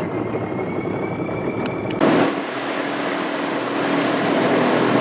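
A boat's outboard motor running steadily. About two seconds in the sound changes abruptly and a steady hum comes in.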